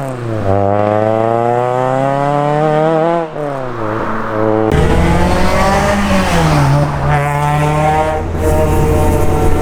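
Renault 5 GT Turbo's naturally aspirated 1.8 16-valve four-cylinder engine accelerating hard: the revs climb, drop at a gear change about three seconds in and climb again, then fall away and settle to a steady pitch under heavier road and wind noise.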